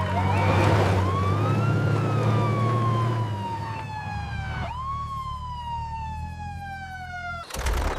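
Police car siren wailing: two slow sweeps, each rising quickly and then falling slowly in pitch, over a low engine rumble in the first half, cutting off suddenly near the end.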